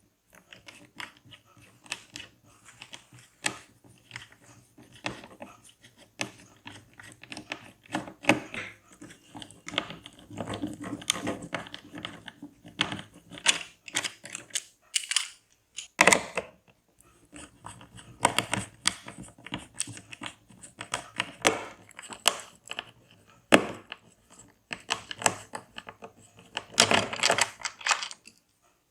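Packaging being handled and opened by hand: irregular clicks, taps, rustling and tearing of cardboard and plastic, with a few sharper knocks.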